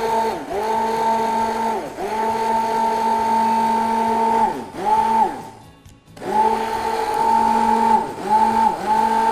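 Electric stick blender whipping cream in a tall glass. The motor whines steadily in pulses: it is switched off and on again and again, the pitch sagging each time it slows and rising as it spins back up, with a short pause about two-thirds through.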